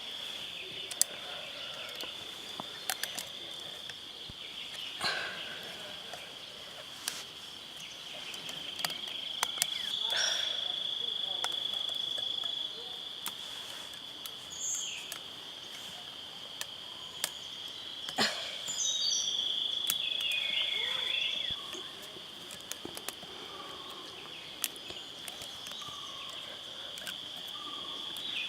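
Insects in the forest droning steadily at one high pitch, swelling louder twice for a few seconds. Sharp clicks and snaps come now and then, with a few short falling chirps midway.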